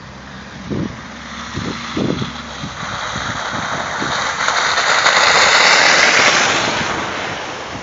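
A vehicle passing by, its road noise swelling to a peak about six seconds in and then fading. A few dull thumps come before it, about one and two seconds in.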